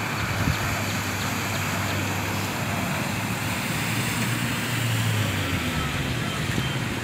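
Car engines humming steadily over a constant hiss of traffic and water as cars drive through a flooded street.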